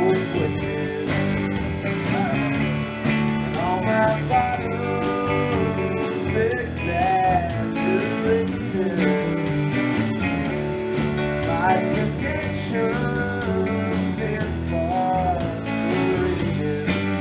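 Live rock band playing: a red semi-hollow-body electric guitar and a Telecaster-style electric guitar over a drum kit, in a steady groove.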